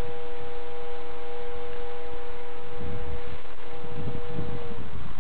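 A model autogyro's motor and propeller in flight give a steady, high whine of several tones over a gusty rumble. The whine dips slightly in pitch and cuts out about five seconds in.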